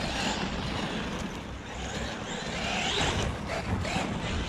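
Traxxas Maxx 4S electric RC monster truck driving across gravel, its Surpass 4076 2200kv brushless motor whining, with a rising whine as it speeds up about three seconds in.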